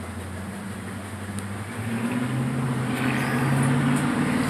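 A motor vehicle's engine running nearby, a steady low hum that grows louder about two seconds in.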